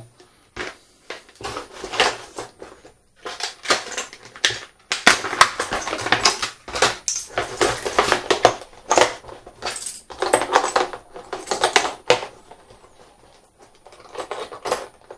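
Metal wrenches being handled and laid into their plastic case: repeated clinking and clattering of tools with rustling packaging, quieter for the last few seconds.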